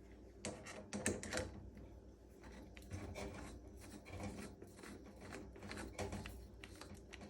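Faint, scattered clicks and knocks of handling as a dryer-vent brush rod's end is fitted into a drill's chuck.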